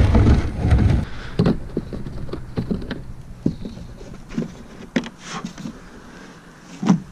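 Scattered knocks, clicks and scrapes of gear being handled against a plastic fishing kayak, a Native Watercraft Manta Ray 12XT, at the launch. A low rumble fills the first second, and there is a sharper knock near the end.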